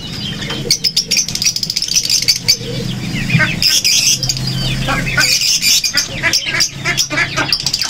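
A flock of caged lovebirds chattering with rapid, high-pitched chirps and squeaks, mixed with short wing flutters.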